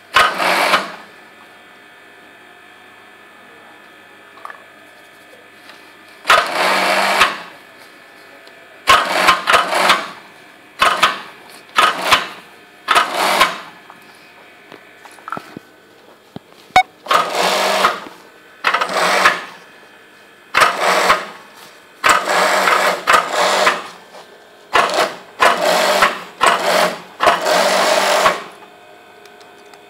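Juki industrial sewing machine stitching in short runs, about a dozen bursts of a second or so each, stopping and starting as the fabric is guided; a steady hum carries on between the runs.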